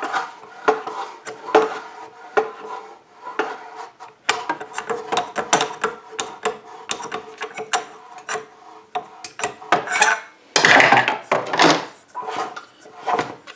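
Repeated metallic clicks, knocks and scrapes of a screwdriver levering against the recoil starter cup on the flywheel of a seized 196cc Honda-clone engine, forcing it to free up. A louder rasping stretch comes about eleven seconds in as the flywheel is worked round by hand.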